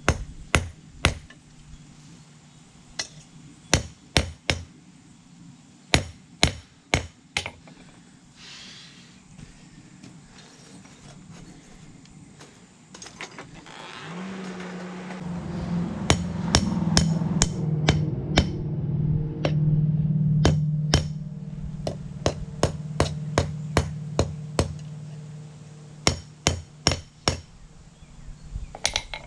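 Hand hammer striking the steel of a hay rake tine on an anvil in runs of quick blows, flattening the cut end into a screwdriver blade. There is a short pause in the blows, and a steady low hum comes in about halfway through and fades later.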